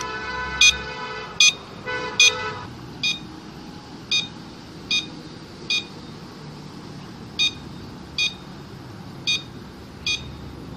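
Electric three-wheel scooter's turn-signal beeper: short electronic beeps about every 0.8 s while the indicators flash, with one longer pause near the middle. A steady buzzing tone sounds under the first few beeps for about two and a half seconds.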